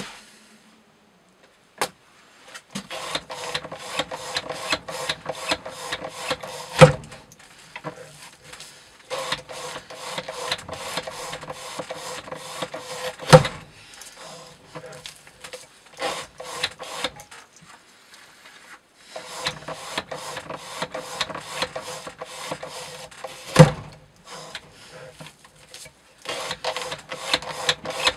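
Rapid, even rasping strokes of a CPM Cru-Wear knife blade (Bark River Wilderness Explorer) cutting through rope on a weighted edge-retention test rig. The strokes come in runs of several seconds, and a loud sharp knock ends three of the runs.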